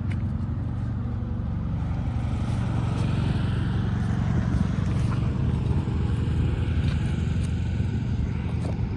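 Steady low rumble, with a few faint ticks and scrapes as a roofer works nails loose from asphalt shingles.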